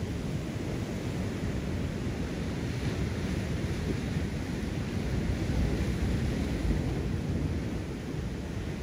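Steady wind rumble on the microphone over the wash of surf breaking on rocks.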